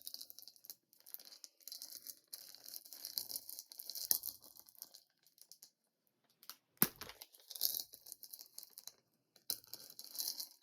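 Plastic bag crinkling and rustling in irregular bursts as skeins of yarn are handled and pulled out of it, with one sharp click about seven seconds in.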